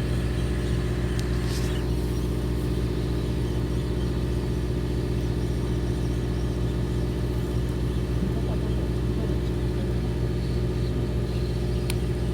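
Fishing boat's engine running steadily at anchor, a low, even drone that holds without change.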